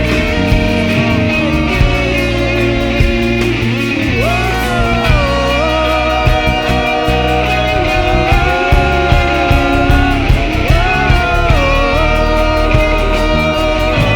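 Live worship band playing an instrumental passage: guitars over bass and a steady drum beat, with a melody that slides between long held notes.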